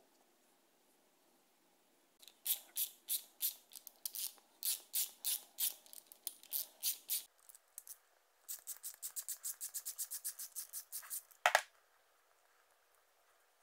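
Ratchet wrench clicking in quick strokes as it turns a bolt in a wooden block. A slower run of clicks is followed by a faster one, then one louder knock near the end.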